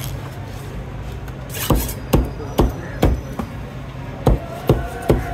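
A heavy knife chopping through fish on a cutting board, with sharp strokes about two a second. There are four strokes starting about a second and a half in, then three more near the end.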